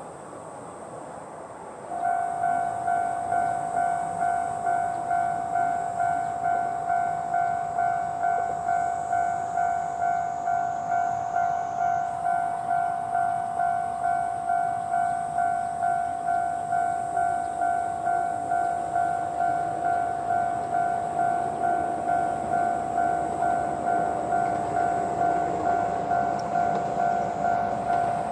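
Japanese level-crossing warning bell at its normal volume setting. It starts about two seconds in and rings an even electronic two-tone 'kan-kan' at about one and a half strikes a second, the signal that the crossing is closing for an approaching train. A low rumble builds beneath it in the last few seconds.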